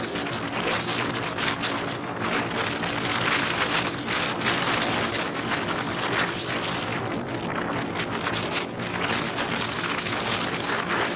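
Motorcycle engine running steadily under way, nearly buried under heavy wind rush and buffeting on the microphone.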